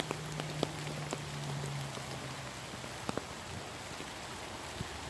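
Steady rain falling on the forest around a wet paved path, with a few sharp drop ticks scattered through it. A low steady hum fades out about halfway through.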